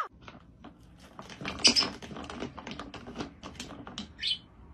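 A small parrot clambering on a plastic swing-top bin lid: irregular light clicks and taps of claws and beak on plastic, with two short, louder rustles, one about a second and a half in and one near the end.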